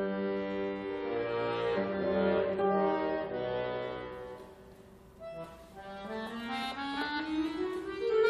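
Trio of cello, guitar and accordion (bayan) playing contemporary classical chamber music. Held chords swell, fade almost away about five seconds in, then a slow upward glide in pitch builds.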